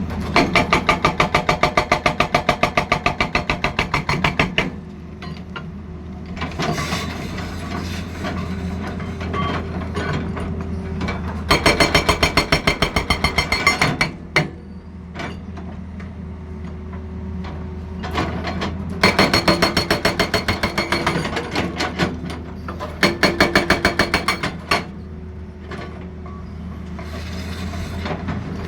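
Excavator-mounted hydraulic breaker hammering in bursts of rapid, evenly spaced blows, each lasting a few seconds, about six times. Between the bursts the excavator's diesel engine runs steadily.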